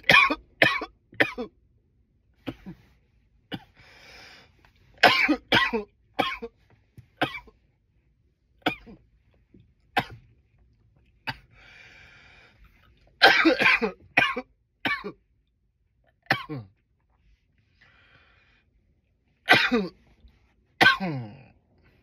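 A man coughing loudly, in fits of several harsh coughs and single coughs, with breaths drawn in between.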